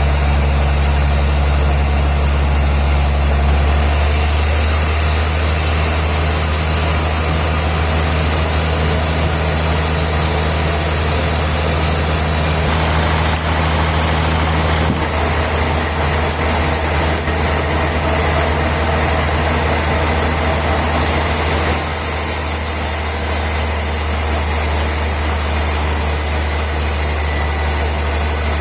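Industrial band sawmill running: a loud, steady low engine hum under a broad hiss. The sound shifts in character a few times, at about 4, 15 and 22 seconds in.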